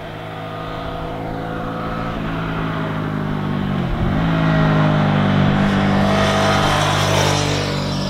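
Suzuki V-Strom 650 XT's 645 cc V-twin engine as the motorcycle rides up toward and past the listener, growing louder to a peak a couple of seconds before the end. The engine note dips briefly in pitch about four seconds in.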